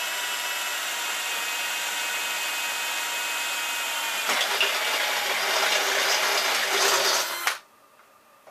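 Cordless drill-driver running steadily as it drives a bolt into the metal frame. About four seconds in its sound turns louder and harsher under load, then it cuts off suddenly a second before the end.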